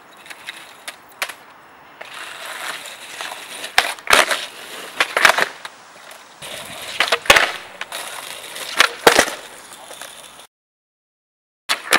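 Skateboard wheels rolling on wet asphalt, broken by a string of sharp clacks and slaps as the board is popped, flipped and landed on. The sound cuts off abruptly about ten and a half seconds in, with one brief burst just before the end.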